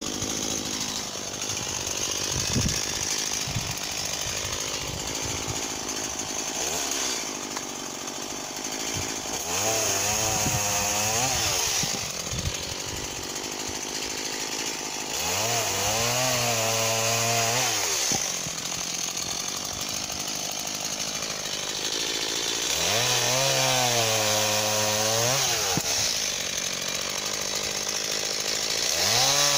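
Stihl MS 170 two-stroke chainsaw running, its engine revved up, held and let back down about four times.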